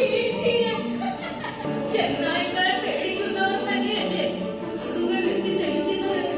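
A group of voices singing a song together over musical accompaniment.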